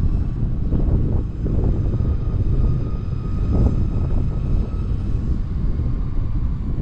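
Skateboard rolling over pavement: a steady low rumble from the wheels, with a faint steady whine above it.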